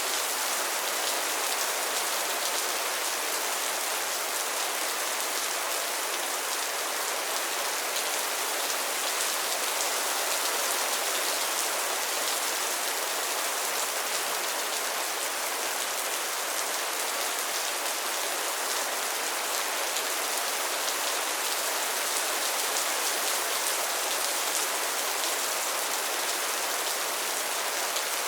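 Steady rain falling on a pond and its lily pads, a constant hiss of many fine drops pattering on water and leaves.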